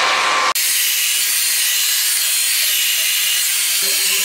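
Handheld hair dryer blowing steadily. About half a second in, the sound abruptly turns thinner and hissier and then holds steady.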